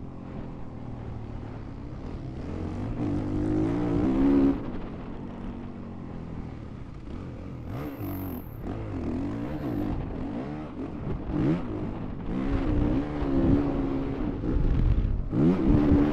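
Honda CRF450R's single-cylinder four-stroke engine revving up and falling back under throttle, climbing to a peak about four seconds in and cutting off sharply, then rising and falling again several times with another loud peak near the end.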